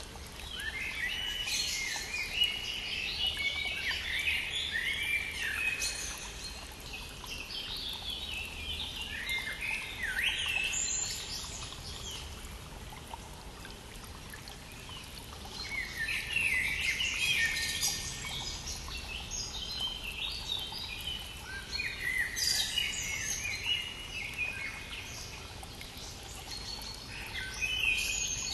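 Songbirds singing in bursts of quick, overlapping chirping phrases, over the steady rush of a brook.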